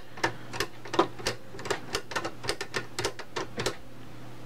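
Irregular small clicks and taps, about three or four a second, of metal and plastic parts being handled and fitted on a Tamiya 1/14 King Hauler model truck chassis, under a faint steady hum.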